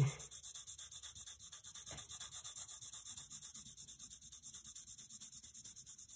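Side of a graphite pencil rubbed quickly back and forth across paper to shade: a faint, even scratching in rapid regular strokes.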